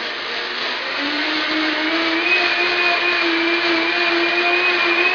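High-powered countertop blender running on manual control, milling dry beans into flour. It is loud, and its motor whine steps up in pitch about a second in, then holds steady.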